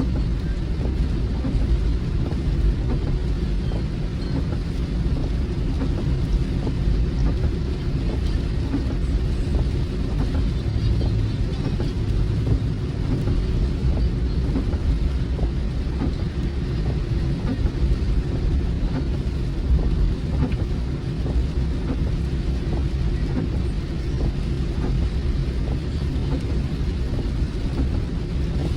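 A car driving in the rain, heard from inside the cabin: a steady low rumble of road and engine noise, with faint scattered taps of rain on the car.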